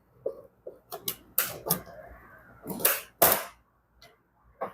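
Irregular sharp plastic clicks and snaps as an old license plate light lens is worked loose from its housing, the loudest pair about three seconds in.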